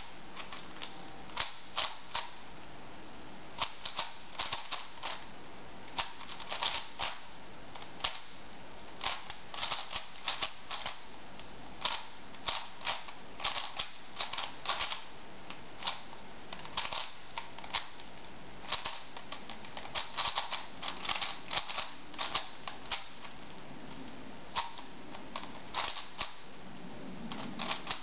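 A 4x4 plastic puzzle cube turned rapidly by hand during a timed solve: its layers clack in irregular runs of quick sharp clicks, with short pauses between runs.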